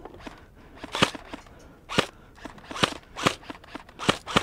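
Airsoft guns firing: about six sharp single shots at irregular intervals, the first about a second in being the loudest, with two in quick succession near the end.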